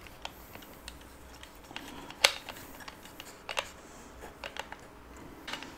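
Scattered small clicks and taps of a grinding disc and knurled flange nut being handled and turned by hand on the spindle of a switched-off Dewalt DCG405N angle grinder, with one sharper click a little over two seconds in.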